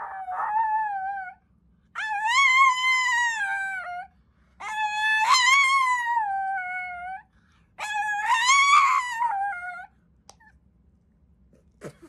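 Small dog howling in four long drawn-out howls with short breaths between, each wavering and sliding down in pitch at its end.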